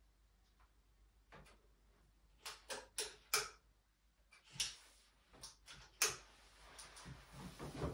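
Sharp clicks and knocks from handling a scoped air rifle on a plywood shooting table: one single click, then four in quick succession over about a second, then a few more spaced out.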